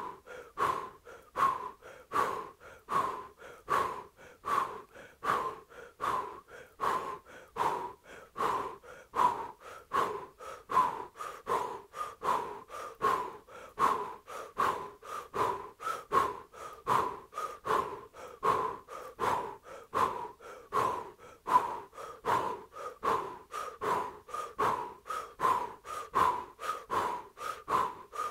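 Rapid, evenly paced, powerful breathing through the mouth: a woman's Kundalini yoga pranayama, each breath pushed out hard from the navel as the arms press out to the sides.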